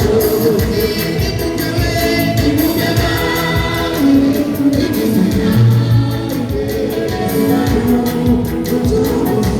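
A choir singing a gospel song with instrumental backing over a steady beat.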